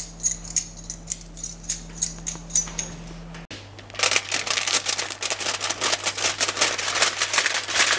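Pizza-cutter wheel rolling through a crisp baked pizza on aluminium foil: a dense, rapid crackling crunch that starts about four seconds in. It follows a few seconds of faint, scattered clicks.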